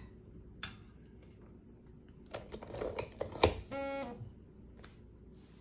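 Small clicks and clatter as a Lee powder measure is handled and adjusted by hand, building to one sharp click a bit past halfway. A short buzzing tone follows for about half a second.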